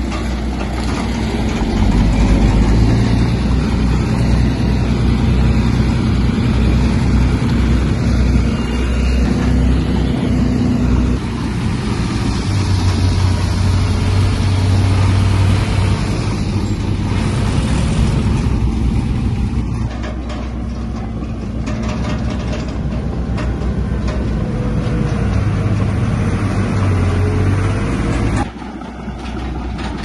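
Diesel engine of heavy earthmoving machinery running steadily with a deep low drone. Its note shifts abruptly about a third of the way in, and the level drops suddenly near the end.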